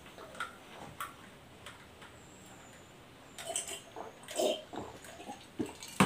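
A man drinking from a glass: gulping and swallowing, with short irregular mouth noises in the second half and a click of the glass set down on the table at the very end.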